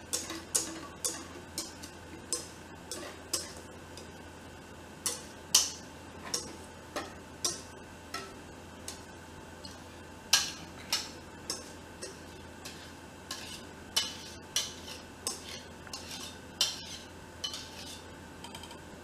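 A spatula scraping and clinking against the inside of a stainless steel mixing bowl as thick cheesecake batter is worked out of it, making irregular metallic clicks and knocks about one or two a second.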